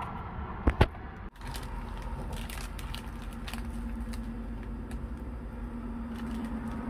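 Plastic food packaging being handled: two sharp clicks about a second in, then scattered light clicks and crinkles as raw pork is lifted from its pack and laid in a grill pan, over a steady low hum that comes in partway through.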